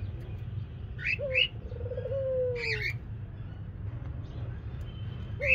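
Ringneck parakeets chirping: short high calls about a second in and again near three seconds, with a longer, lower call that falls in pitch between them. A steady low hum runs underneath.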